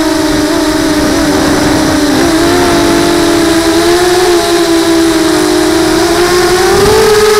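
Multirotor drone's electric motors and propellers whining, heard through its onboard camera, the pitch wandering slowly with throttle and rising near the end, over a low rumble of wind on the microphone.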